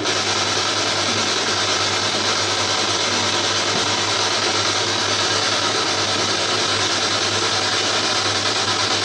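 Ghost box (spirit box) sweeping rapidly through radio stations: continuous loud, choppy radio static with a steady low hum.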